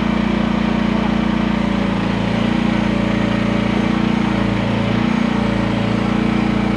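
Gasoline engine of a QH13R micro mini excavator running steadily, with a slight change in its low note from about two seconds in.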